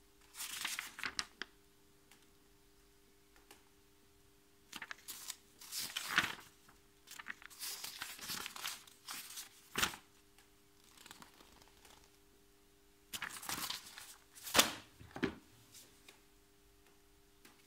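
Paper pages of an instruction manual rustling as they are leafed through, in irregular bursts with pauses between. Near the end there is a sharp knock as the manual and parts are handled over the open plastic tool case.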